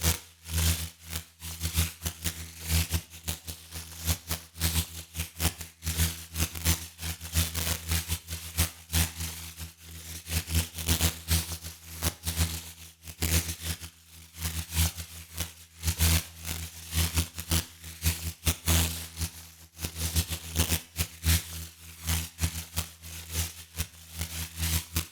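Electricity surging sound effect: a low electrical hum under dense, irregular crackling and sputtering that swells and drops again and again, the sound of arcing from a high-voltage wire or damaged electronics.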